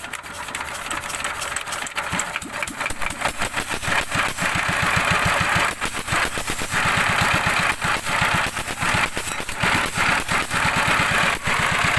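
Dompeng single-cylinder diesel engine running, with a quick, even train of firing knocks. It builds up over the first few seconds and then runs steadily.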